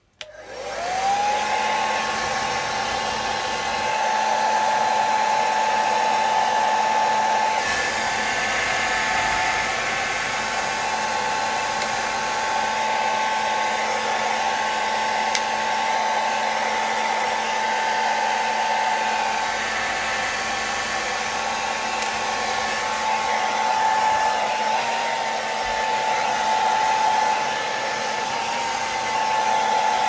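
Remington Power Dry 2000 hair dryer switched on, its motor whine rising and settling within about a second, then running steadily with a rush of air. The pitch wavers slightly a few times near the end.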